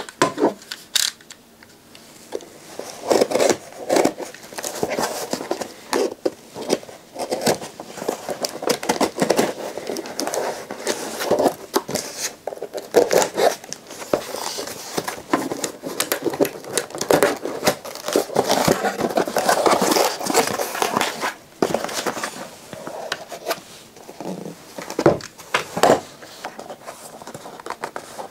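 A cardboard parcel being opened by hand: a utility knife slicing through packing tape, tape and paper tearing, and cardboard and packaging crinkling and scraping as the box is handled, in a run of irregular clicks and rustles.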